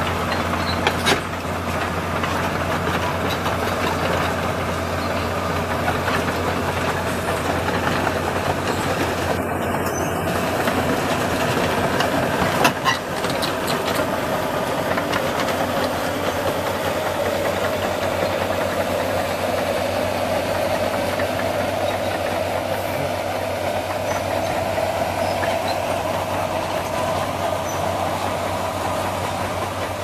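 Komatsu crawler excavator travelling on its steel tracks: a steady diesel engine drone with the rattling clank of the track links. Two sharp knocks stand out, about a second in and about halfway through.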